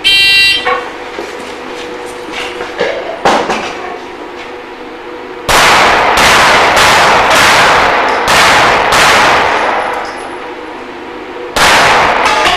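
A shot-timer beep, then a string of pistol shots about half a second apart, with steel targets clanging as they are hit.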